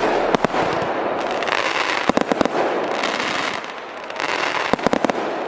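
A 200-shot, 0.8-inch-calibre consumer fireworks cake firing: a continuous crackle of bursting effects, with several quick clusters of sharp pops.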